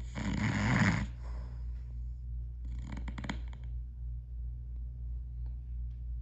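A man snoring loudly: one long snore in the first second, then a fluttering, rattling snore about three seconds in, over a steady low hum.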